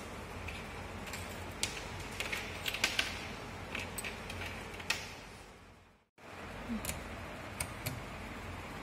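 Scattered small clicks and taps from handling test leads and clips and pressing oscilloscope front-panel controls, over a steady background hiss with a faint mains hum. The sound drops out completely for a moment about six seconds in.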